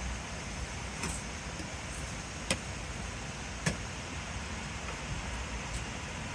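Tableware clinking: a few sharp clicks of a spoon and ceramic bowls on the table, the loudest two in the middle, over a steady low background rumble.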